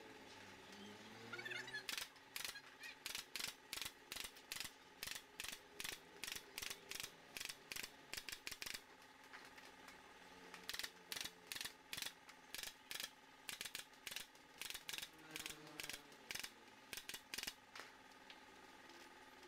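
Pneumatic nail gun firing shot after shot into a bamboo bench frame: two long runs of sharp clicks, about three a second, with a short pause between them.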